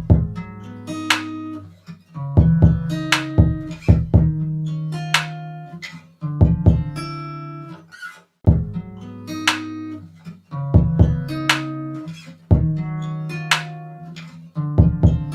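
Background music: a plucked guitar playing a repeating pattern of notes over a low bass line.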